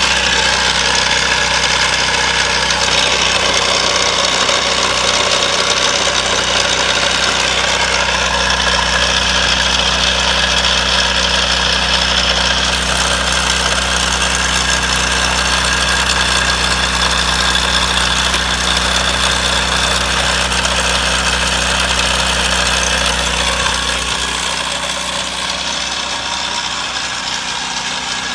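Small Ryobi generator engine, converted to run on propane through a GEET fuel processor, idling steadily. Near the end its deepest hum fades and it gets a little quieter.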